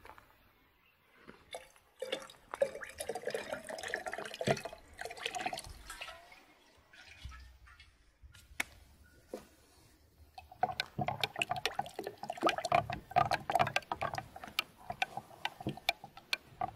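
Ayran poured from a clay jug into a glass pitcher for a few seconds. Then, from about two-thirds of the way in, it is stirred briskly with a wooden spoon: sloshing liquid and rapid tapping against the glass.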